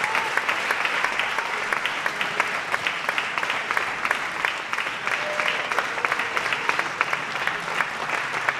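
Applause from the audience and the choir together: many hands clapping steadily, without a break.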